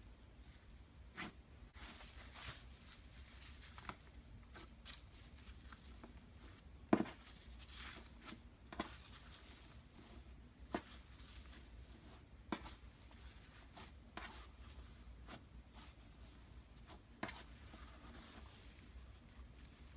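Slime being squeezed and pressed by hand, giving faint, irregular sticky clicks and pops, one every second or so, over a light hiss. The loudest pop comes about a third of the way through.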